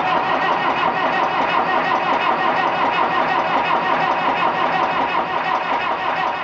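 Massey Ferguson 275 diesel tractor engine being turned over by its starter on a cold start, cranking steadily and evenly without catching.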